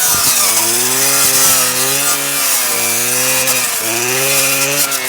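Stihl KA 120 R power head spinning a circular saw blade fitted with chainsaw teeth as it cuts, with its pitch dipping under load and recovering several times.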